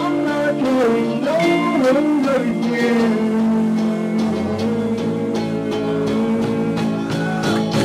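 Rock band playing: a male singer sings a gliding melody over electric guitar and bass guitar.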